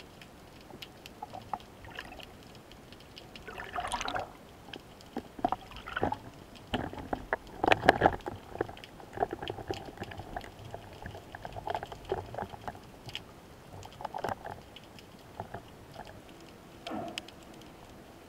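Underwater, irregular clicks, knocks and water swishes and gurgles from a spearfisher handling the speargun and a speared fish. The loudest bursts come about 4 and 8 seconds in.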